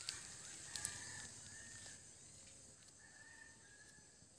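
Faint rural outdoor ambience: a few sharp clicks in the first second, and a faint high drawn-out call heard in stretches of about a second, twice.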